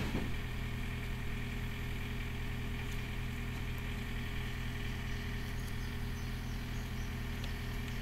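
Diesel engine idling steadily, an even low hum that does not change pitch.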